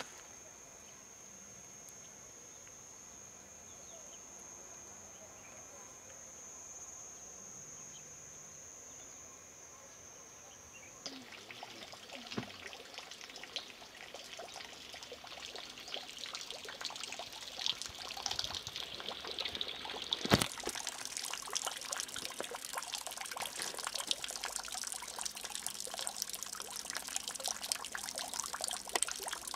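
An insect's steady high-pitched trill for the first third, which cuts off abruptly. A louder rushing hiss follows, and after a sharp click at about two-thirds of the way through, a shallow stream trickles over stones.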